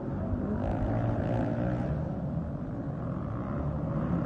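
Several motocross dirt bikes' engines running and revving hard as they race around the track.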